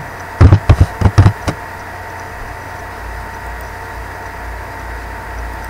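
A quick run of about six sharp clicks from computer keyboard keys as a short name is typed, then a steady low hum and hiss.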